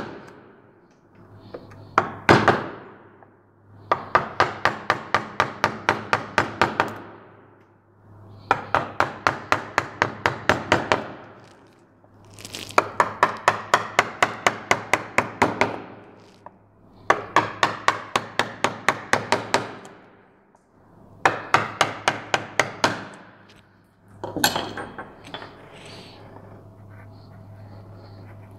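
Rubber mallet tapping the handle of a wood-carving gouge as it cuts into a wooden moulding, in quick runs of about four strikes a second with short pauses between runs. The tapping stops about 24 seconds in.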